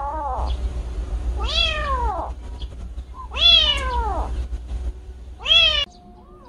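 Young tabby kitten meowing: the end of one cry at the start, then three loud, separate cries, each rising and then falling in pitch, the last cut off abruptly near the end.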